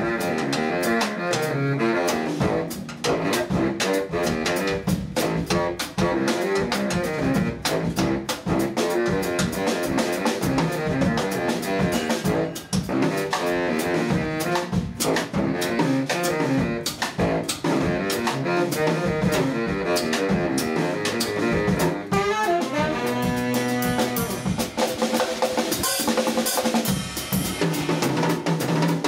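Live jazz: a saxophone quartet of soprano, alto, tenor, baritone and bass saxophones plays interlocking lines over a busy drum kit of kick, snare, rimshots and cymbals. Around two thirds of the way through, the saxophones hold a few long notes together.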